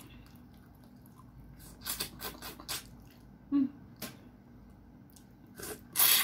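Close mouth sounds of a person eating with her hands: a string of short wet smacks and lip clicks about two seconds in, then a louder sucking slurp near the end as her fingers go into her mouth.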